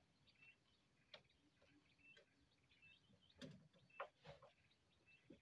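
Near silence, with faint short chirps from small birds recurring throughout and a few faint clicks and knocks, the loudest about three and a half to four and a half seconds in.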